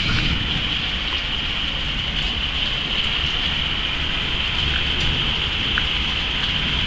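Heavy rain pouring down steadily: a dense, even hiss with a low rumble underneath.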